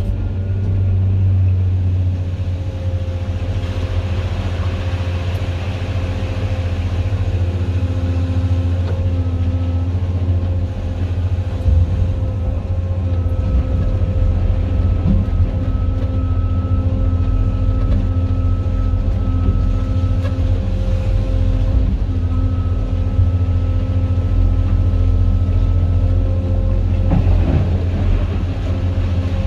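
Cat 390F L excavator's diesel engine working steadily under load, heard from inside the cab: a deep, even drone with a thin steady whine above it. A few faint knocks and a brief rattle of rock come near the end as the bucket dumps into the truck.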